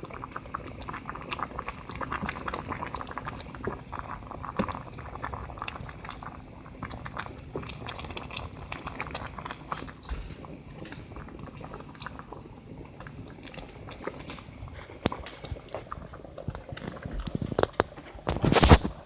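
Pot of okra soup simmering on the stove, bubbling and popping with many small irregular pops. A louder clatter comes near the end.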